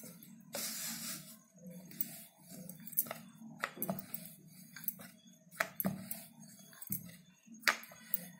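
Dough being rolled out with a wooden rolling pin on a wooden board: light knocks and clicks every second or so as the pin rolls and taps the board. A soft rubbing hiss comes about half a second in, as a hand presses and spreads the floured dough. A low steady hum runs underneath.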